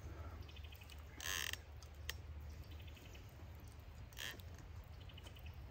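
A metal spoon scraping the inside of a backpacking cook pot, once about a second in and more softly around four seconds, with a light click between. Faint short rattling trills come and go three times over a low steady rumble.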